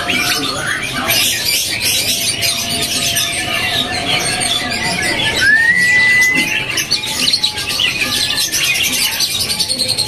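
Many caged songbirds chirping and calling over one another in a dense, continuous chatter, with one clear whistle that rises and then holds about five and a half seconds in.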